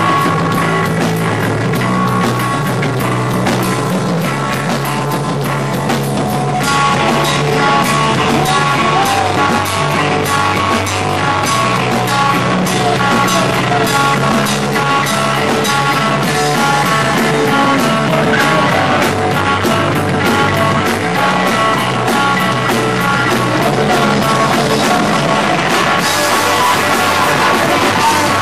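Live rock band playing loudly: distorted electric guitars, bass and a drum kit.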